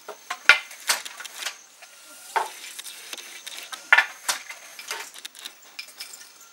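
Wooden handloom being worked: sharp knocks of the beater packing the weft into the cotton cloth, coming in pairs twice, with lighter clicks and rattles of the loom's wooden parts between.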